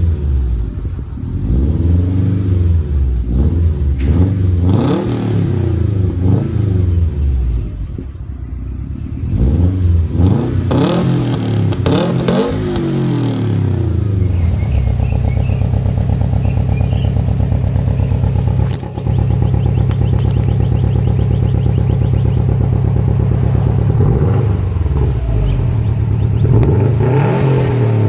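2008 Subaru Impreza WRX STi's turbocharged flat-four running through an Invidia downpipe and Magnaflow cat-back exhaust, revved up and down in repeated blips, then held at a steady high rev for about ten seconds with a brief dip midway, then blipped again near the end.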